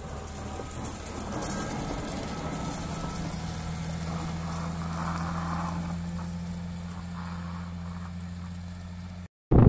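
Heavy work machine's engine running steadily with a low hum, with light metallic rattling and clicking over it. It cuts off abruptly near the end.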